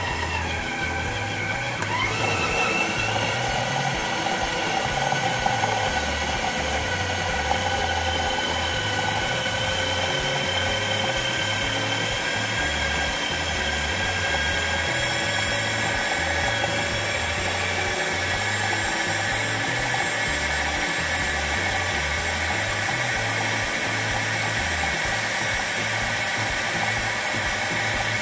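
Philips Walita food processor motor running steadily with a whine, its blade chopping a mix of garlic, onion, peppers, herbs and sea salt into a coarse paste. The whine dips and climbs back up about two seconds in.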